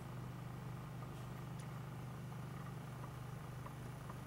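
Steady low hum with a few faint, small ticks over it.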